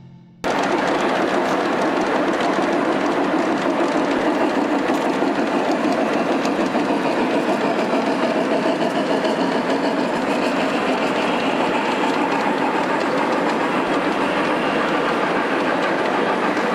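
G-scale model freight train led by two Conrail diesel locomotives rolling past on the track: a steady rattle of wheels on rail with a fast, even ripple, starting abruptly about half a second in.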